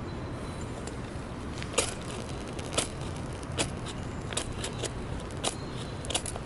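Tissue and fatwood kindling being lit for a campfire: a series of sharp, irregular crackles and clicks, roughly one a second, over a steady low rumble.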